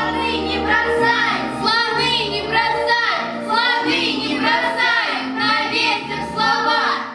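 Young voices singing a song in a group over recorded musical accompaniment.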